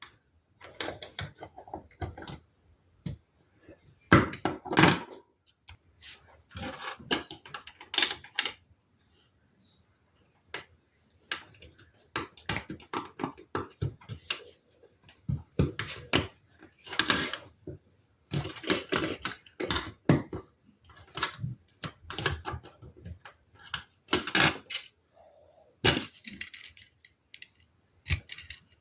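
Plastic LEGO Technic pieces being handled and fitted together: bursts of clicking and rattling, with short pauses between, and a quiet stretch about ten seconds in.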